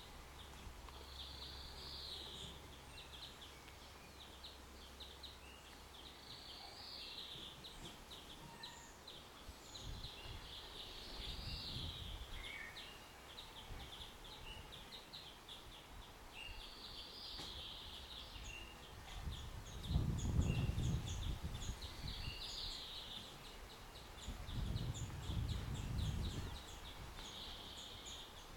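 Garden birdsong: a songbird repeats a short trilled phrase every few seconds, with scattered high chirps between. Low, dull rumbles rise three times, about ten, twenty and twenty-five seconds in, and the second is the loudest.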